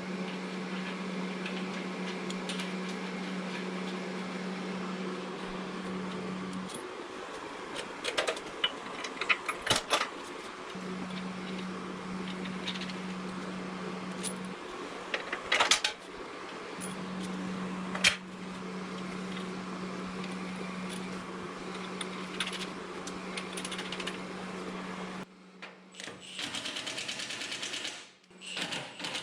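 Metal bolts and brackets clinking and clicking as they are handled, a few sharp knocks clustered around a third of the way in and again past the middle, over a steady low hum that cuts out and comes back a couple of times.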